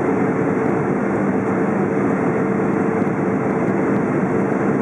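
Steady jet airliner cabin noise inside a Boeing 777-200 on descent, a blend of engine and airflow rush with a constant hum running through it.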